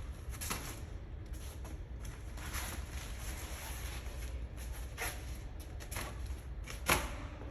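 Gear being handled and shifted: a few short knocks and rustles, the loudest near the end, over a low steady rumble.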